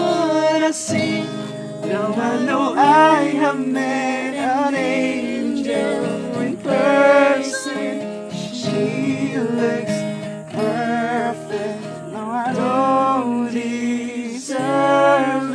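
Live singing with acoustic guitar accompaniment: sustained, sliding sung notes over steady guitar chords.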